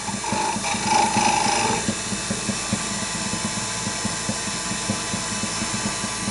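Wood lathe running while a turning tool takes a light smoothing cut on a small spinning wooden chess piece. A pitched whine from the cut sounds for the first couple of seconds, then the lathe runs on steadily.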